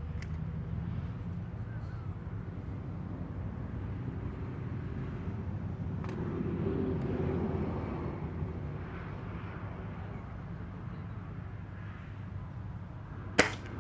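A single sharp crack near the end, a PCP air rifle being fired, over a steady low outdoor hum that swells a little in the middle.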